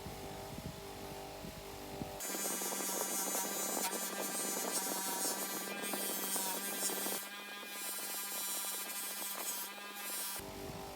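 Small electric polishing tool running with a steady hum. About two seconds in, it gives way to a louder, rougher sound of the tool working on metal over a steady tone, and the plain hum returns near the end.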